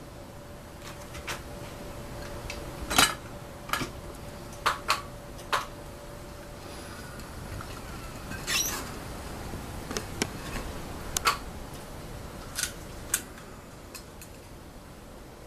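Irregular metal clicks, taps and clinks of a door lock's screws and hardware being handled and fitted with a screwdriver, with a short scrape about halfway through.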